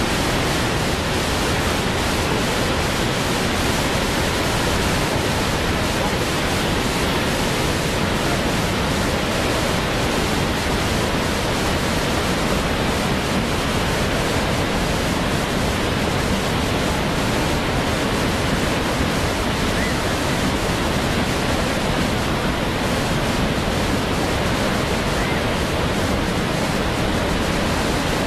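Steady rushing of a large river waterfall, the Teotônio rapids on the Madeira River.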